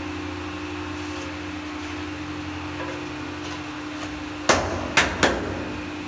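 Three sharp knocks on a ceramic wall tile as it is being set, the last two close together, each with a short ring. A steady hum runs underneath.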